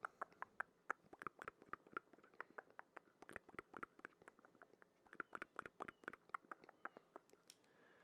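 Close-miked ASMR mouth sounds: a quick, irregular run of wet clicks and smacks, several a second.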